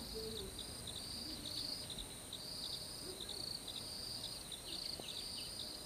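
Insects chirping in short, repeated buzzy trills over a steady high-pitched whine.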